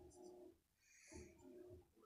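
Near silence: room tone with a few faint, indistinct low sounds.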